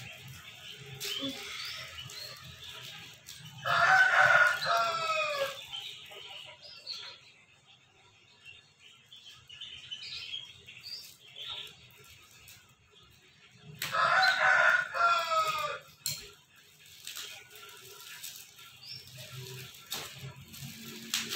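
A rooster crowing twice, about ten seconds apart, each crow lasting about two seconds.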